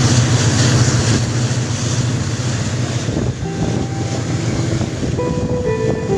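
Wind buffeting the microphone over the steady low hum of a boat's motor on open water. A few held tones come in during the second half.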